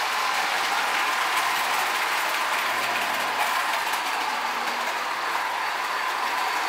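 Modern Marx tinplate toy trains running on three-rail tubular track: a steady rolling clatter of metal wheels on the rails with the whir of the locomotive's mechanism.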